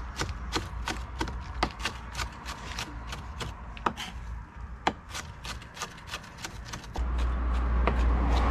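Kitchen knife chopping herbs and vegetables finely on a wooden cutting board, about three or four sharp strikes a second. About seven seconds in, a loud low rumble sets in under the chopping.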